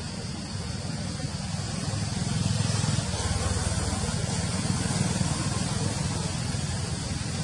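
Steady low rumble and hiss of outdoor background noise, swelling a little about two seconds in.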